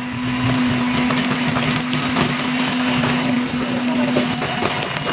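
Electric hand mixer running steadily with a constant motor hum, beating eggs and milk for a cake batter.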